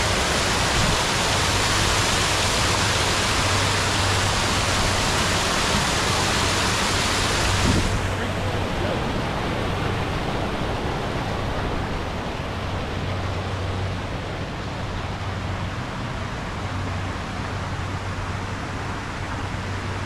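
Steady rush of flowing water with a low hum underneath. About eight seconds in, the rush abruptly turns duller and a little quieter.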